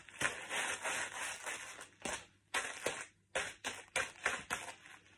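Crisps crunching and crackling underfoot as flat ballet pumps stamp and grind them into the floor: a quick, irregular run of sharp crunches with a couple of short pauses.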